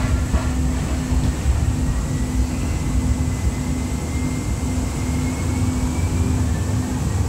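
Ride noise inside a Siemens S200 LRV4 light-rail car under way: a steady low rumble of wheels on track with a pulsing hum, and a faint whine that slowly rises in pitch.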